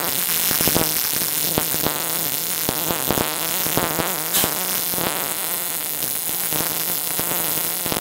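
MIG welder (Multimix 265) arc welding, a steady crackling sizzle with irregular pops as the wire is fed. It is laying a round seam with the torch held by hand.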